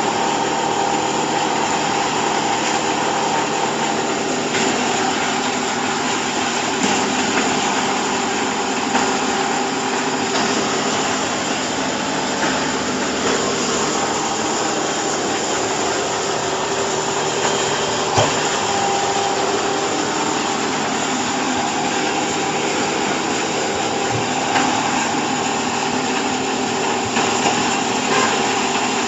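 Hydraulic baling press's motor and pump running steadily with a constant hum and whine, with a couple of brief knocks.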